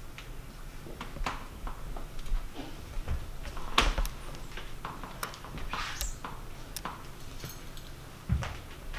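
Dancers' bodies, hands and feet scuffing and knocking on a stage floor in irregular short sounds over a steady low hum. The sharpest knock comes about four seconds in.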